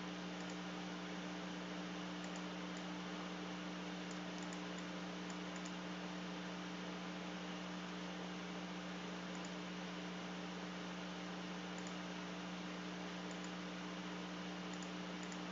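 Steady electrical hum with a constant hiss from the recording setup, with a few faint scattered clicks.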